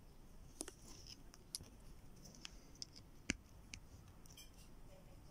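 Faint, scattered small clicks and scratches of thin copper wire being twisted and handled by fingers, with one sharper click a little after three seconds in.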